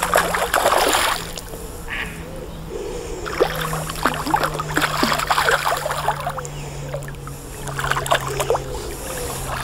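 A hooked carp thrashing in shallow margin water, making splashing bursts near the start, in the middle and again near the end, over a steady low hum.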